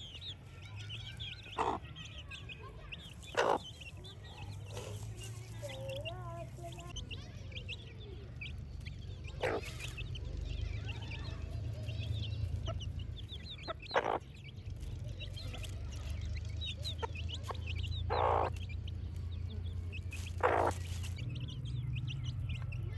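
Baby chicks peeping: a constant flurry of short, high cheeps over a steady low hum, with a handful of louder, sharp, brief sounds scattered through.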